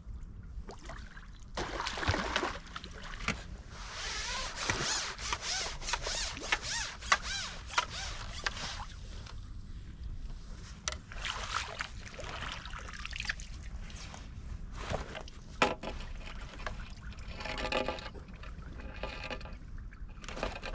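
Water splashing and sloshing in irregular bursts, from a big hooked carp thrashing at the surface while it is played on a long feeder rod.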